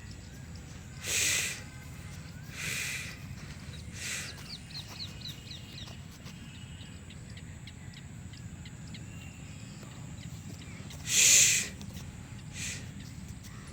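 A goat snorting, five short sharp blows of breath spread through the stretch, the loudest about eleven seconds in. A bird chirps faintly in a quick series about five seconds in.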